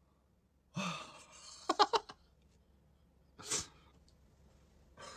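A man's dismayed breathing between stretches of near silence: a low exhale about a second in, a few quick sharp clicks soon after, and a short sharp gasp or hiss of breath near the middle.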